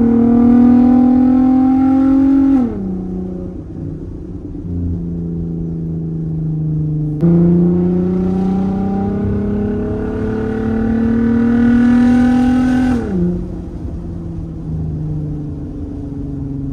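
Volkswagen R32's 3.2-litre VR6 engine heard from inside the cabin under hard acceleration, its pitch rising and then dropping sharply at a gear change about two and a half seconds in. About seven seconds in the engine note jumps up and louder and it pulls hard again, rising for about six seconds before a second gear change drops it to a steady lower pitch.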